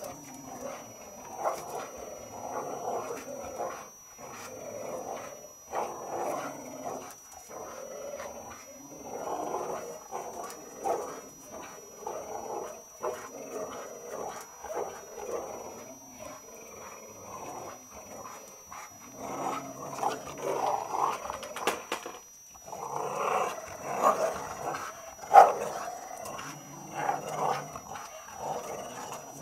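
Dogs, a bulldog and an American Staffordshire terrier among them, growling in play while tugging at a plastic traffic cone, in repeated rumbling bouts that grow louder in the second half, with one sharp, louder sound about 25 seconds in.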